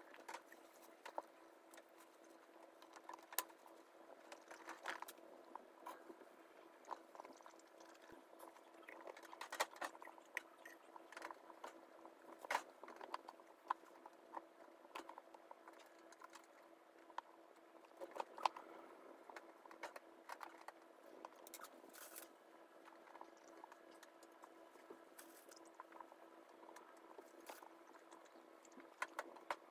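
Faint rustling and scattered light clicks of guinea pigs moving about in a fleece-lined cage with hay, over a steady low hum.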